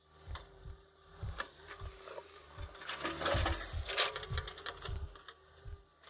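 A JCB backhoe loader working beside an idling tractor: diesel engines running with a rhythmic low thudding, and a louder noisy rush about three to four seconds in.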